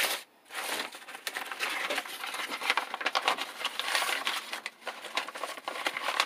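Rustling and crinkling of a deflated inflatable life-vest bladder and its nylon cover, handled and folded by hand.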